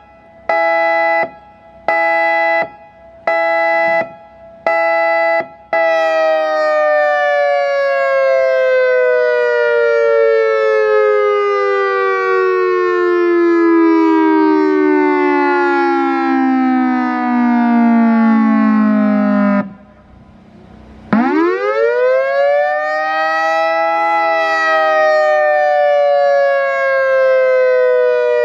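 EOWS 612 electronic outdoor warning siren, a stack of horn speakers, running through its signals. First a tone pulses on and off about once a second. About six seconds in a continuous tone starts and falls slowly in pitch, and near twenty seconds it cuts out. It then sweeps quickly back up and begins falling again.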